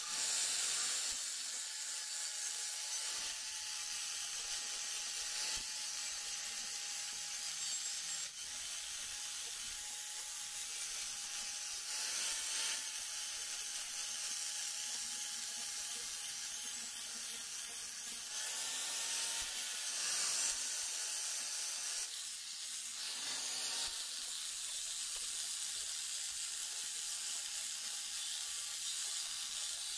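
Electric angle grinder running with a steady high whine as its abrasive disc grinds the surface of a cast-iron Singer sewing machine stand frame. The grinding hiss swells several times as the disc is pressed harder into the metal.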